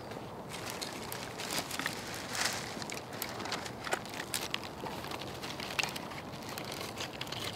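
A small fire catching in a nest of wood shavings, crackling with scattered sharp pops. Near the end comes the rustle and snap of a bundle of dry twigs being laid on the flame.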